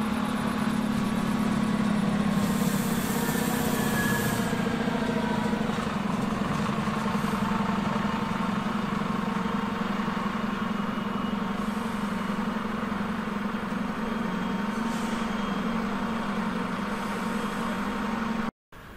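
Stadler Regio-Shuttle RS1 diesel railcar running steadily as it pulls out of the station, its diesel engine giving a steady low drone. A burst of air hiss starts about two seconds in and lasts about two seconds. The sound cuts off just before the end.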